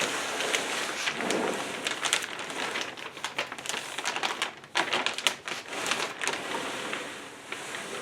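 Packing material and cardboard rustling and crinkling as hands dig through a shipping box, with irregular crackles throughout.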